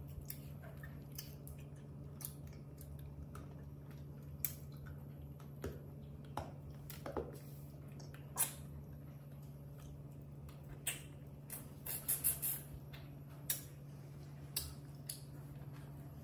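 Scattered small wet clicks and smacks of a baby macaque licking and sucking on a lollipop, a dozen or so irregularly spaced, over a steady low hum.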